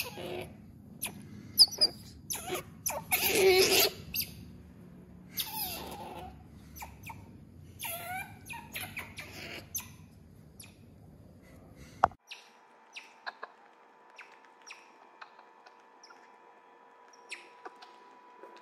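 Asian small-clawed otters squeaking, chirping and whining in a run of short high calls during play, loudest about three to four seconds in. About twelve seconds in the calls stop abruptly. A quieter stretch follows, with a faint steady hum and a few soft ticks.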